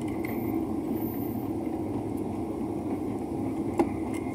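Airliner cabin noise from the engines and airflow, steady and even, heard inside the cabin on a low approach to landing. A single sharp click sounds near the end.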